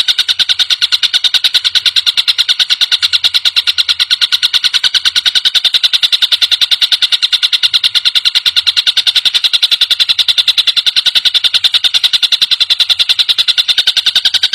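Tengkek buto kingfisher call: a fast, unbroken rattle of harsh, high notes, about seven a second, kept perfectly even throughout as an edited song loop.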